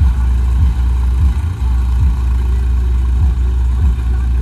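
Tractor diesel engine running steadily with a deep, low rumble.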